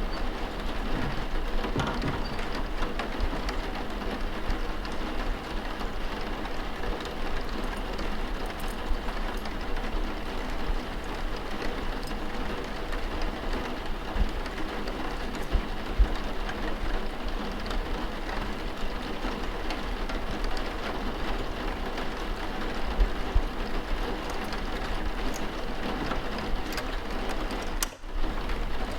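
Steady rain falling, with faint scattered ticks and knocks through it. The sound drops out briefly about a second before the end.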